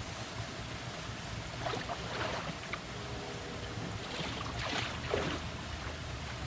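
Cut brush and grass clippings being cleared from a creek: two longer rustling, scraping pulls about two and five seconds in, with a few small clicks, over a steady rushing background.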